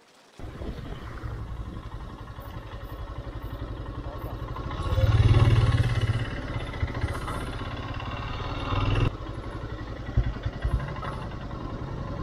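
Royal Enfield Himalayan's single-cylinder engine running while riding, with an even low thumping. It swells louder around five seconds in, then drops back just after nine seconds to a lower, uneven beat as the bike slows.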